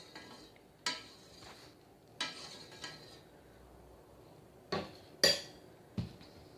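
Metal kitchenware clinking: about five sharp clinks that ring briefly, the loudest about five seconds in, as a pot, its lid and utensils are handled while the kadha cooks.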